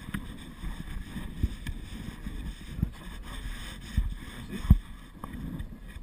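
Wind rumbling on a GoPro's microphone, with about five dull thumps as the camera is handled and moved.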